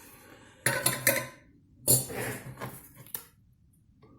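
Several light metallic clinks and knocks as a laptop's fanless metal heat-sink plate is handled and set down, the loudest about two seconds in.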